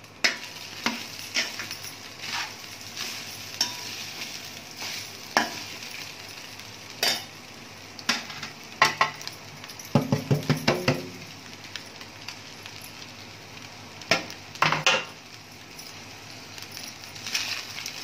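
Metal ladle stirring and scraping cooked rice in a stainless steel pan, folding it into fried grated coconut and tempering, with scattered scrapes and clinks against the pan over a faint steady sizzle. About ten seconds in comes a quick run of knocks against the pan that ring briefly.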